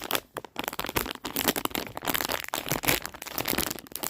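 Packaging wrapper being crinkled and torn open by hand as a squishy toy is unwrapped: a dense, irregular crackling.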